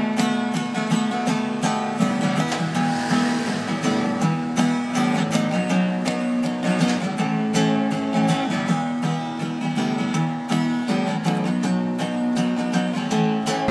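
Background music led by a strummed acoustic guitar, with a steady rhythm.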